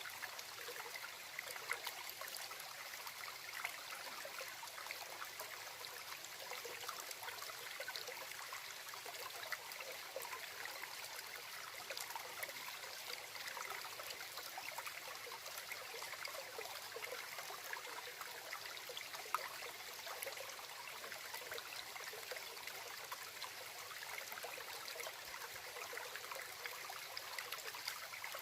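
A small stream babbling and trickling steadily over stones, with many small splashes and drips.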